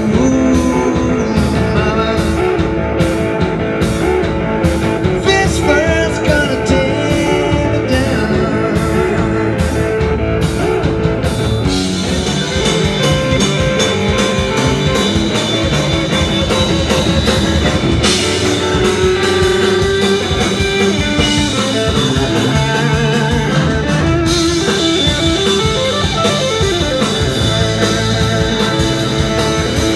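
Live rock band playing loudly: a lead electric guitar with bent, sliding notes over bass guitar and drum kit. Evenly spaced drum strikes carry the first twelve seconds, then the band fills out to a denser sound.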